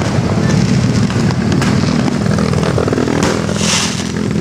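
Fireworks and firecrackers going off: scattered sharp pops over a steady low rumble, with a short hissing whoosh a little after three seconds in.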